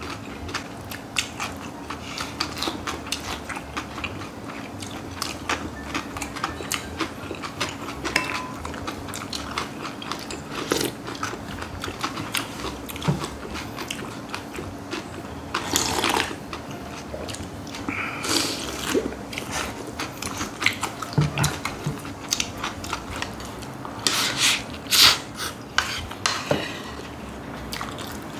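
Close-up eating sounds: chewing and crunching of bibimbap made with raw young radish greens, and wooden spoons tapping and scraping on plates. A few louder slurps of cold cucumber soup from a glass bowl come about halfway through and again near the end.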